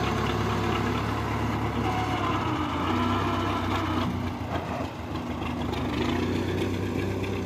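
Farm tractor's diesel engine running steadily as the front-loader tractor works and moves off, its note shifting about four seconds in, with a brief dip in level near five seconds.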